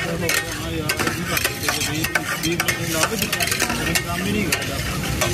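A metal spatula scraping and clacking repeatedly on a large tawa griddle as dal is stirred and mashed, over a steady sizzle of frying.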